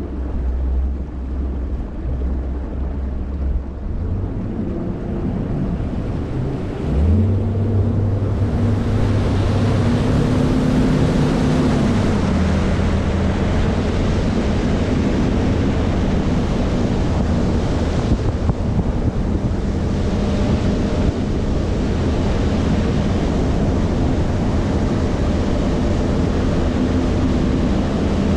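A bass boat's outboard motor idles low, then is throttled up about seven seconds in, its pitch rising and settling into a steady run. Wind and water rush past the hull from then on.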